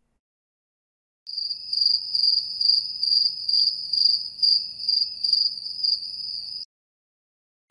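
Crickets chirping, a stock sound effect: a steady high trill that swells and dips about twice a second, starting a little over a second in and cutting off sharply near the end.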